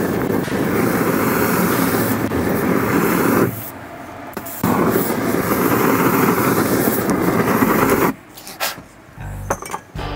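Flame jet from a lit aerosol spray-paint can, a steady rushing hiss of burning spray, in two long bursts with a pause of about a second between them. It stops about eight seconds in, leaving a few faint clicks.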